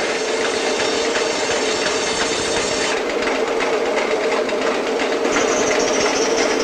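Home-built bandsaw running steadily, its blade cutting through a log to saw it into boards. A high whine comes in a little after five seconds.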